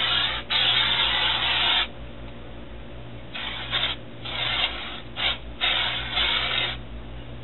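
Aerosol shimmer body spray hissing as it is sprayed straight onto the skin. Two bursts come in the first two seconds, the second about a second and a half long, then four or five shorter bursts between about three and a half and six and a half seconds in.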